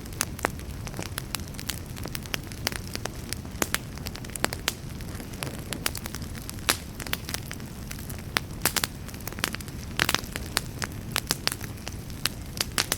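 Wood fire burning in a fireplace: a steady low rumble of flames with many sharp, irregular crackles and pops from the burning logs.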